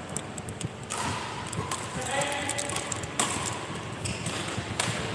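Badminton rally in a large sports hall: three sharp racket hits on the shuttlecock, about a second and a half to two seconds apart, with voices in the hall between them.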